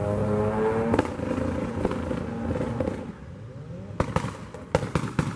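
A car engine revs up, rising in pitch, and breaks off with a sharp bang about a second in. Near the end a quick string of sharp pops and crackles follows, the exhaust popping as the revs drop.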